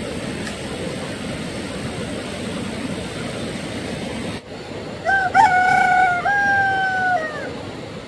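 A rooster crowing once, a long call of about two seconds beginning about five seconds in, rising at the start, held level, then dropping away. Before it, a steady rushing noise cuts off abruptly.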